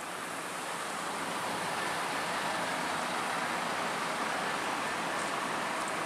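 Steady rushing splash of a fountain's water, an even hiss that grows slightly louder.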